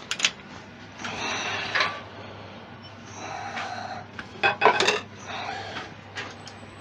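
Metal tool rest and banjo of a wood lathe being slid into position against the blank and clamped: scraping and rubbing with several knocks, the loudest cluster of clanks about two-thirds of the way through.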